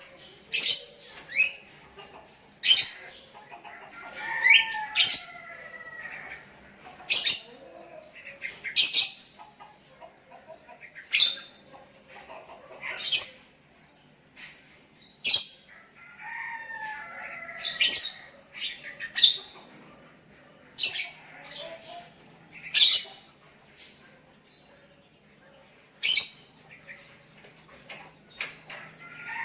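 Sooty-headed bulbuls calling: loud, sharp chirps every second or two, with short warbling phrases in between, as one bird calls and others answer.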